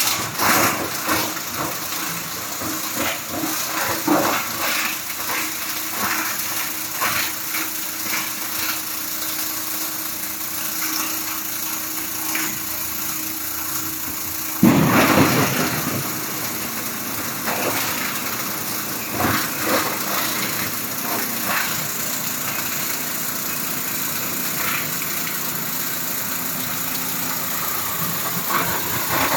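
Rhong RG-3660E 15 kW plastic granulator running, its cutter blades chopping plastic with a steady mechanical noise and irregular cracking and crunching, and one loud burst about halfway through.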